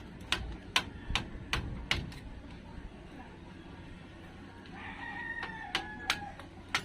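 A rooster crows once, starting a little before five seconds in and lasting about a second and a half. Before it comes a regular run of sharp metallic clicks or taps, about two and a half a second, from the work on the brake caliper, with a few more taps near the end.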